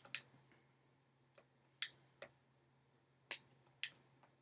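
About five isolated, sharp key clicks spread over a few seconds of near silence, the odd keystroke of someone typing, over a faint steady low hum.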